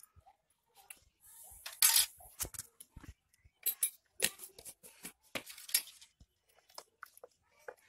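A run of sharp clinks and knocks from utensils against a clay pot as ground spice paste is added to the pot. The loudest comes about two seconds in, with a short scraping hiss.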